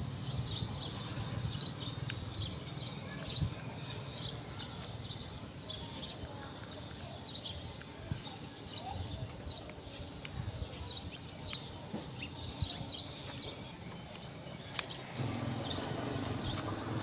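Small birds chirping in the background: many short, high calls scattered throughout, with a little handling noise.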